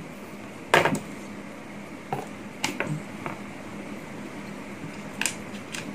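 Light knocks and clicks of plastic model airliner parts being handled and set down: one louder knock about a second in, then a few scattered taps, over a faint steady hum.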